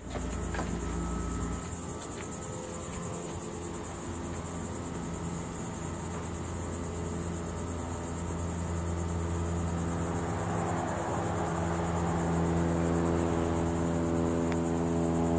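Steady high-pitched insect chirring, with a steady low hum underneath that grows fuller about two-thirds of the way through, and a few faint ticks.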